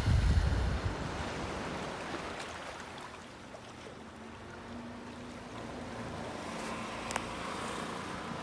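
Sea waves breaking on rocks: a heavy surge of surf at the start, settling into a steady wash of water.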